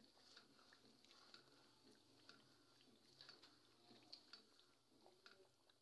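Faint, irregular wet clicks and squishes of a spoon stirring chicken pieces frying in oil and masala in a pan.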